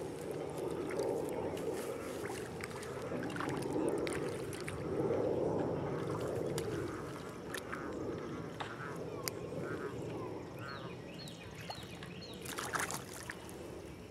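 Outdoor lakeside sound: a steady rush that rises and falls, with scattered light clicks. A run of short bird calls comes near the end.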